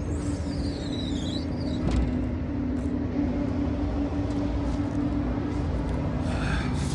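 Heavy diesel engine idling steadily: a constant low rumble with an even hum.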